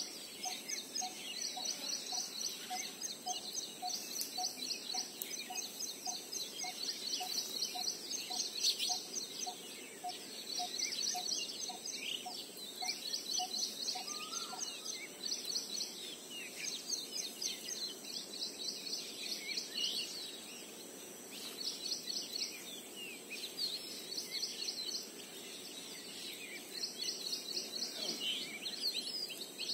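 Birds chirping in rapid, repeated trills throughout, over a thin steady high tone. A short lower note repeats a little under twice a second, then stops about halfway through.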